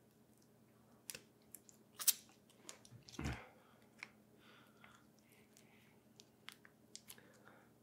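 A person chewing food close to the microphone: soft mouth sounds with scattered sharp clicks, the loudest about two seconds in, and a short, louder rustle with a low thump just after three seconds.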